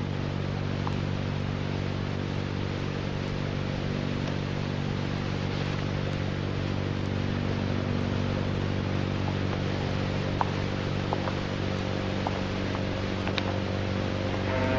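Steady low hum with many overtones under an even hiss, with a few faint ticks scattered through it.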